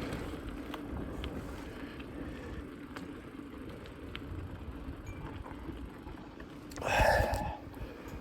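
Mountain bike ride: an uneven low rumble of tyres on the trail and wind on the microphone, with a few faint ticks and a brief louder noise about seven seconds in.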